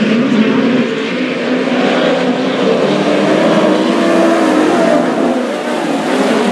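A pack of open-wheel dirt-track race cars running at racing speed. Several engines are heard at once, their notes wavering up and down as the cars pass and go through the turns.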